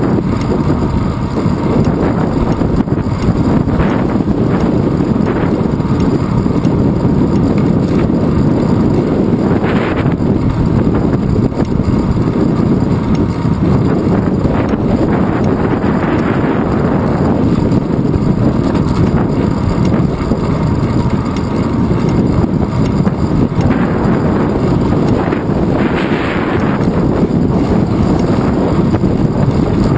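Wind buffeting the microphone of a handlebar-mounted GoPro Hero 2 on a moving bicycle: a steady loud rumble, with a few brief hissing swells about halfway through and near the end.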